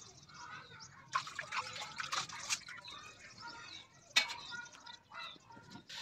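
Steel cookware clinking and knocking a few times, the sharpest about four seconds in, over liquid sounds from a pot of fenugreek greens cooking on the stove.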